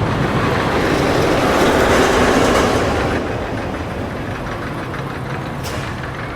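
Roller coaster train running along its track, a rumbling clatter of wheels on rail that swells louder for a couple of seconds and then eases off about three seconds in. A brief sharp click sounds near the end.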